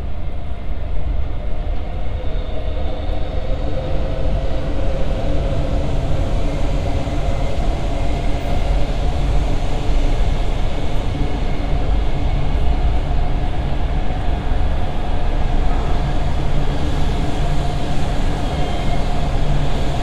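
A train running past, a loud steady rumble with a faint whining tone that grows stronger in the second half.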